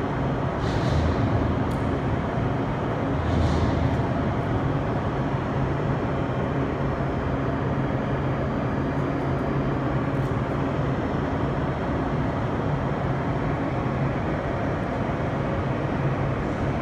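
Car engine idling with a steady low drone. Two brief hisses come within the first four seconds.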